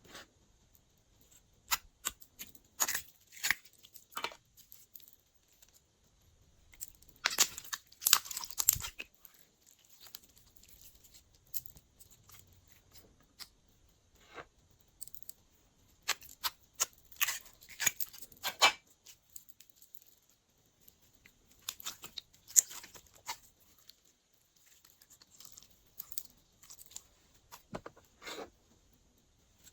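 Glossy slime being squeezed, stretched and folded by hand, giving bursts of sticky crackles and small pops with quiet pauses between.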